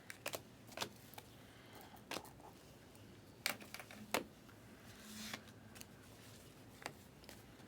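Basketball trading cards being handled: faint, scattered clicks and slides of card stock as cards are flipped through, with a brief soft swish a little past the midpoint.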